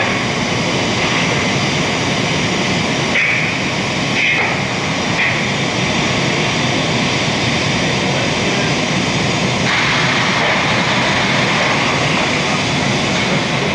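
Industrial machinery running with a steady, loud noise, with a few short higher hisses a few seconds in and a longer one near the end.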